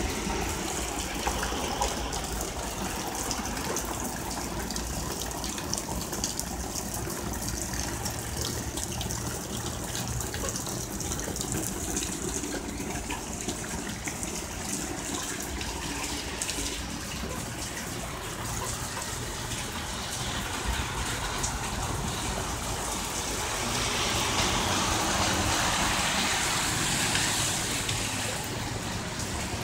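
Heavy rain pouring down steadily, with water splashing and running off the roof edge. Near the end the noise swells for a few seconds as a bus passes on the wet street.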